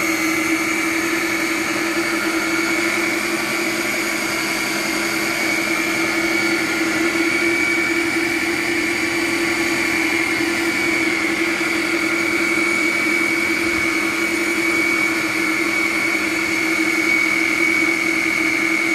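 Ninja Professional Plus Kitchen System blender motor running steadily on its Auto-iQ Dough program, mixing chocolate chips into cookie dough. It makes an even, unchanging hum with a high whine over it.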